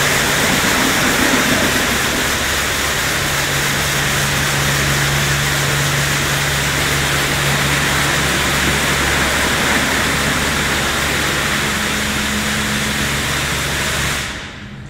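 High-pressure water jets from a WashTec SoftCare2 Pro car wash spraying over a car: a loud, steady hiss of water with a pump's hum underneath. The spray cuts off abruptly about 14 seconds in.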